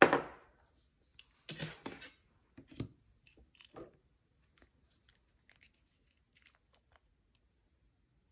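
Hands handling nail-stamping supplies on a stamping mat. A brushing rustle comes at the start, then a cluster of clicks and scrapes about a second and a half in, as the metal stamping plate and polish bottles are set down and picked up. Fainter small taps follow and die away about seven seconds in.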